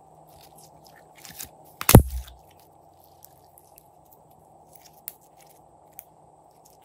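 Glossy slime being handled: scattered faint clicks and crackles as it is squeezed and stretched, with one loud thump about two seconds in.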